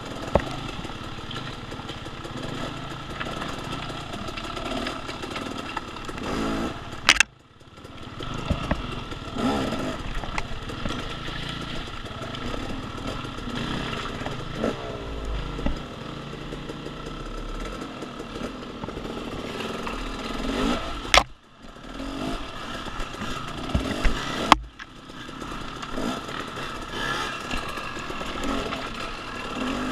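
Dirt bike engine running and revving up and down while riding off-road. Three sharp knocks cut through it, a third of the way in and twice more past two thirds, each followed by a brief dip in the engine sound.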